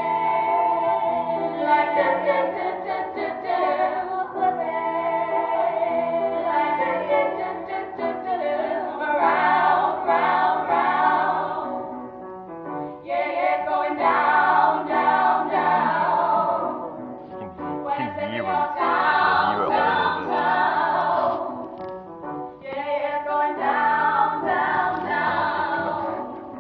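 A group of teenage schoolgirls singing together in phrases, with short breaks between them.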